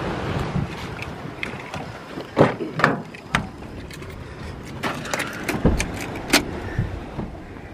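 Car door and interior handling as someone gets into a car: a run of sharp clicks and knocks, with a heavier low thud a little past the middle, typical of the door being shut.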